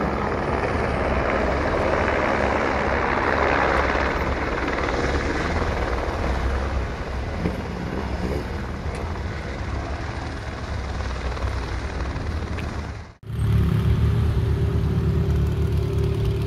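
Helicopter flying past, its rotor and engine noise loudest about three to four seconds in. About thirteen seconds in the sound cuts off abruptly and gives way to a steady low hum.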